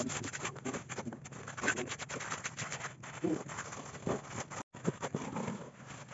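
Wet concrete being scraped, slapped and patted level by hand and with tools: a busy run of short scrapes and taps, with brief faint voices.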